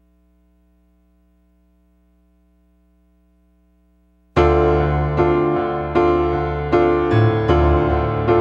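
A faint low hum for about four seconds, then a piano comes in playing the opening chords of a rock song, a new chord struck about every three quarters of a second.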